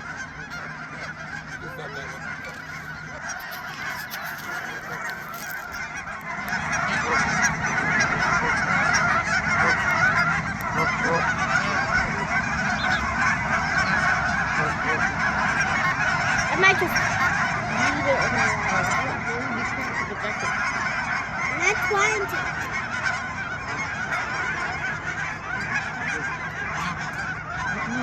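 A flock of geese honking, many calls overlapping into a continuous din that grows louder about six seconds in.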